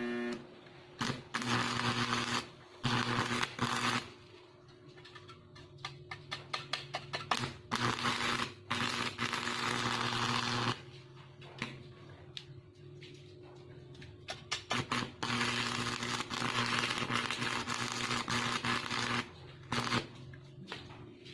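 Stick welding with a homemade microwave-oven-transformer welder. The rod scratches and sputters in short crackles as the arc is struck, then holds in four runs of steady arc crackle, each one to four seconds long. Under the crackle the transformer hums low, louder whenever the arc is burning.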